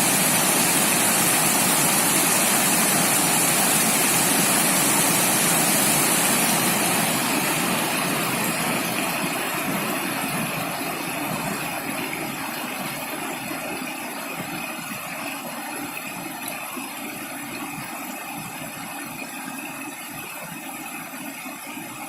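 Rushing water of rocky stream rapids, a steady even rush that fades out gradually from about a third of the way in.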